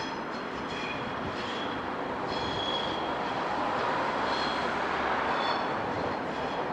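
Network Rail test train, a DBSO driving trailer worked with Class 37 locomotive 37175, approaching over curving track: steady running rumble growing a little louder, with on-and-off high-pitched wheel squeal.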